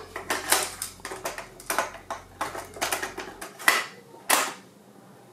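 Plastic clicks and clatter of a cassette being fitted into the Toshiba RT-8700S boombox's cassette deck: a dozen or so quick, sharp clicks, ending with a louder snap about four seconds in as the cassette door is pushed shut.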